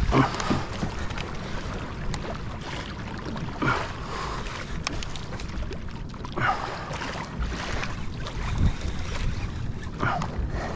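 Sea water sloshing and splashing against the hull of a fishing kayak moving through ocean chop, with wind rumbling on the microphone. A louder splash comes about every three seconds.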